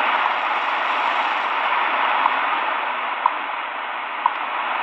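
Eton Elite Traveler portable radio's speaker playing the WWV time station on 10 MHz shortwave: a steady hiss of static with a short tick once a second, the station's seconds pulses.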